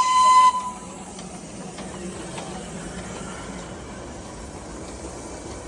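Darjeeling Himalayan Railway toy train whistle, the tail of one long steady high note that cuts off about half a second in. After it comes a much quieter steady hiss and low hum from the train.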